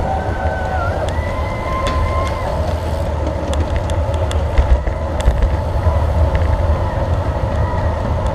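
Road bicycle riding at speed: a steady low rumble of wind and road noise, with scattered clicks and a few brief high tones.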